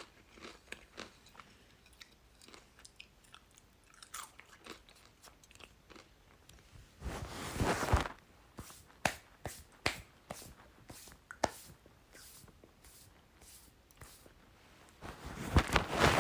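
Chips being bitten and chewed close to the microphone: a run of sharp crunches, with two louder stretches of dense crunching, about seven seconds in and again near the end.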